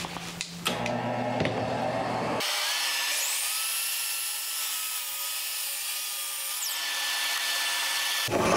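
12-inch sliding compound miter saw running and cutting across a full-depth pine stair tread. The motor hums for about two seconds, then the cut sets in with a high whine over the noise of the blade in the wood, and it stops sharply near the end.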